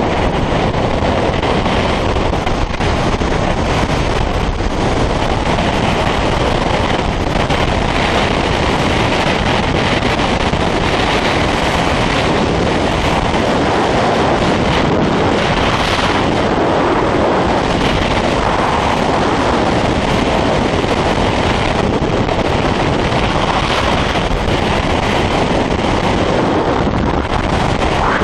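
Loud, steady rush of wind over the microphone in skydiving freefall, an even roar without breaks.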